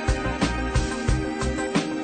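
Background music with a steady beat: sustained tones over regular drum hits, about three a second.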